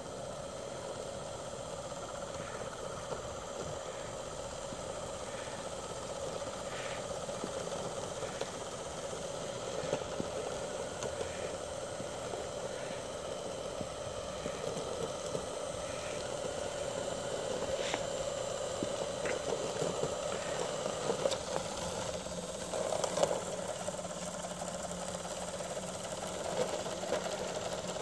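Radio-controlled 6x6 model snowblower running, its small electric motors giving a steady hum that grows slightly louder, with light rattling and a scattered handful of sharp clicks as it blows snow.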